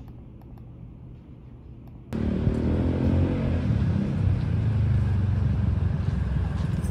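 Faint clicks of a computer mouse and keyboard over quiet office room tone, then, about two seconds in, a sudden switch to much louder city street traffic noise, a steady rumble of vehicles passing.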